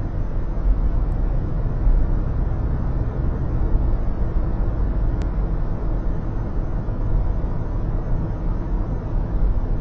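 Steady low road and tyre rumble of a car driving on an expressway, heard from inside the cabin.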